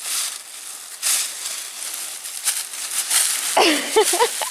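Footsteps crunching and rustling through dry fallen leaves in uneven bursts. Near the end, a quick run of short calls that bend up and down in pitch starts up.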